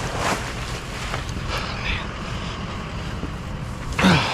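Wind buffeting the microphone as a steady low rumble, with faint rustling, and a brief falling vocal sound near the end.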